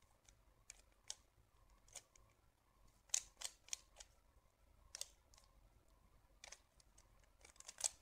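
Plastic 3x3 Rubik's cube being turned by hand, its layers making faint, irregular clicks and clacks as they rotate, with quick flurries of turns about three seconds in and again near the end.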